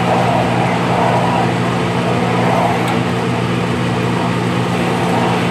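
Steady low mechanical hum of a running motor, even and unchanging throughout.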